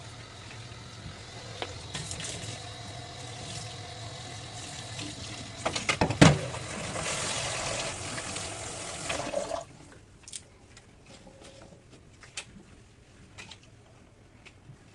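Kitchen sink tap running water into the sink, with a sharp knock about six seconds in. The water flows harder, then stops abruptly as the tap is shut off about ten seconds in, leaving a few light clicks and taps.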